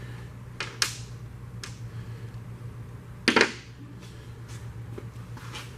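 Metal engine parts and tools clicking and clattering as they are handled during an engine teardown: a few light clicks near the start, a louder short clatter about three seconds in, then faint taps, over a steady low hum.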